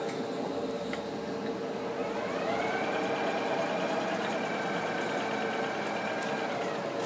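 60-inch Monarch T-lathe carriage running at rapid traverse on its AC servo drive: a whine rises about two seconds in, holds steady, then falls away near the end. Under it is the steady hum of the lathe's running spindle.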